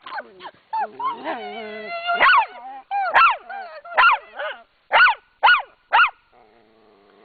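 Small dog vocalising: a drawn-out whine, then a run of short, sharp barks about half a second to a second apart.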